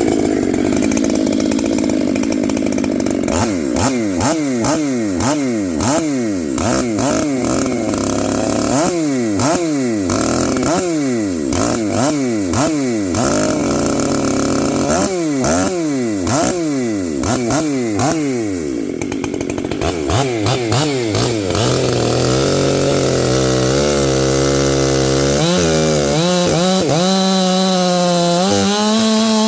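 Stihl MS 500i fuel-injected two-stroke chainsaw running after a no-start repair. The throttle is blipped over and over, so the engine pitch rises and falls repeatedly. In the last several seconds it settles into a steadier, lower, slightly wavering note.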